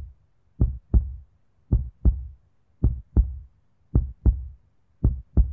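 Heartbeat sound effect: low lub-dub double thumps, about five pairs a little over a second apart.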